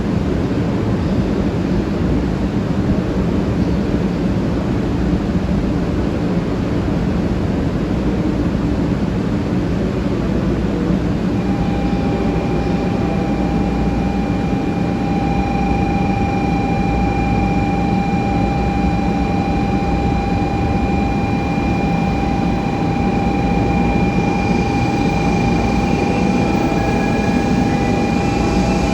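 Steady low rumble of trains standing at a railway station platform. About a third of the way in, a steady high whine joins it and holds to the end, and a hiss grows louder near the end.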